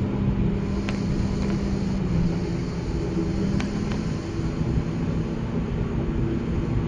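An ATR 42's Pratt & Whitney Canada PW100-series turboprop engines and propellers droning steadily, heard inside the cabin as the aircraft rolls on the ground after landing. The strongest tone eases off about four seconds in.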